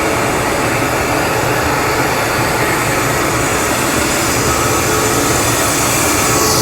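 Xinlei 250 hp two-stage screw air compressor running on test: a loud, steady machine noise with a few faint steady tones in it.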